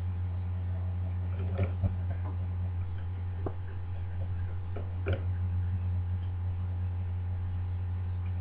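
Steady low electrical hum, with a few light clicks of a mortice deadlock's metal parts being handled as its case is opened.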